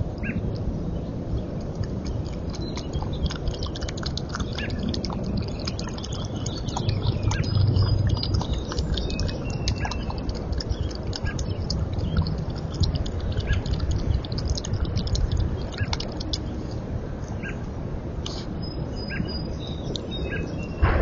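Small birds chirping with short high calls over a steady low rumble, with many small scattered clicks and ticks.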